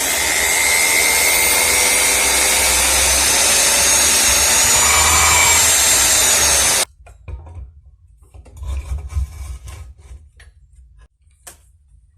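Electric power tool running under load on metal, a dense rasping noise with a faint high whine that rises slightly in pitch. It cuts off suddenly about seven seconds in, leaving only faint handling clicks and rustles.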